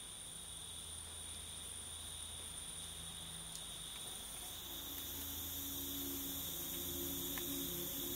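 Quiet, steady insect calls, a continuous high trill of tropical night insects. About halfway through, ambient music with long held notes fades in and grows slowly louder under it.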